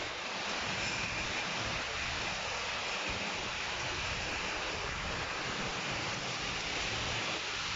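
Heavy monsoon downpour: a steady hiss of rain on leaves and water, with an uneven low rumble of wind on the microphone.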